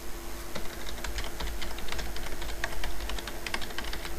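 Typing on a computer keyboard: a quick, uneven run of keystrokes starting about half a second in.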